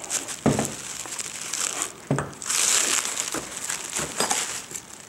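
Packaging crinkling and rustling as it is handled, with two dull knocks about half a second and two seconds in.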